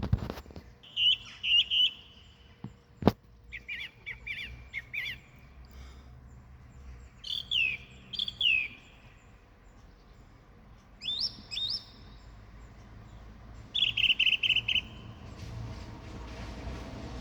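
Songbirds singing short, separate phrases every few seconds, with whistled slurs and quick trills. There is a sharp click at the very start and another about three seconds in, and a low rumble builds near the end.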